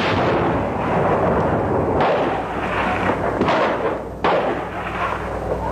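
Battle sounds: dense gunfire and artillery explosions going on throughout, with fresh blasts breaking in about two seconds and again about four seconds in.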